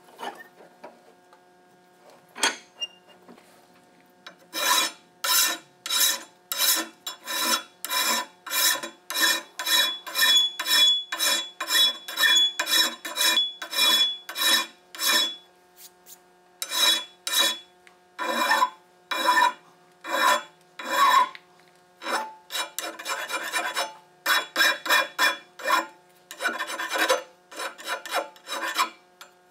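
Hand file rasping across the forged steel jaw end of a Wilton C-clamp, in even strokes about two a second. The strokes begin a few seconds in and go on with a few short pauses.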